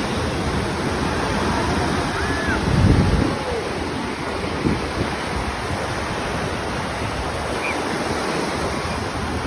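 Ocean surf breaking and washing up the sand, swelling loudest about three seconds in, with wind rumbling on the microphone.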